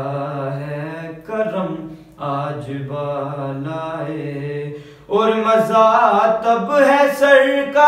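A man reciting a naat, an Urdu devotional poem sung unaccompanied, with long held, melodic notes. About five seconds in, his voice rises louder and higher.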